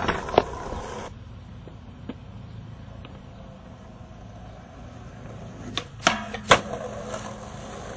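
Skateboard on concrete and a metal handrail: two sharp clacks at the start, then about six seconds in a pop and a loud smack as the board lands on the rail for a boardslide, a second loud smack half a second later, and a steady low ringing hum after it.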